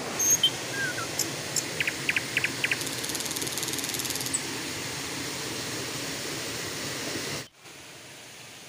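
Small rocky stream running steadily, with a few short high chirps about two seconds in and a brief rapid high-pitched trill around three to four seconds. Near the end it cuts abruptly to a quieter steady hiss.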